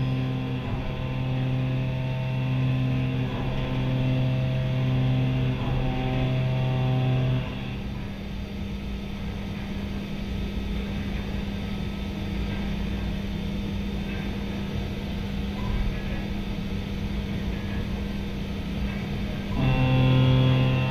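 CNC milling machine's end mill cutting a round metal workpiece, giving a steady pitched cutting tone with short dips every couple of seconds. The tone stops about seven and a half seconds in, leaving the machine running with a steady hum and noise, and the cutting tone starts again near the end.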